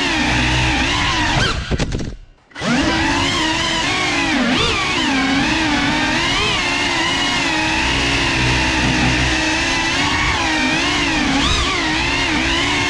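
GEPRC CineLog35 cinewhoop's brushless motors and ducted propellers whining, the pitch rising and falling with the throttle. The sound almost cuts out for about half a second near two seconds in, then picks up again.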